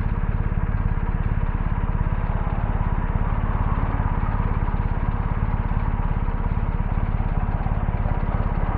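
Motorcycle engine idling steadily with an even, regular pulse.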